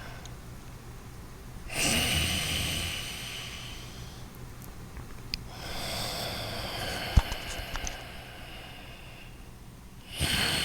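Loud, deliberate breathing through the nose, with pauses of a second or two between breaths where the breath is held: one breath about two seconds in, another about six seconds in, and a third starting near the end. A sharp click about seven seconds in.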